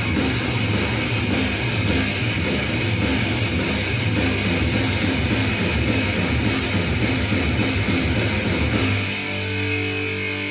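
Heavy rock music led by distorted electric guitar. About nine seconds in, the busy riffing gives way to long held notes.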